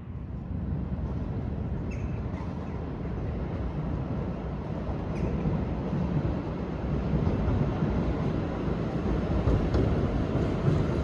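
Steady low rumble of a passing or moving vehicle, growing gradually louder, with a few faint ticks.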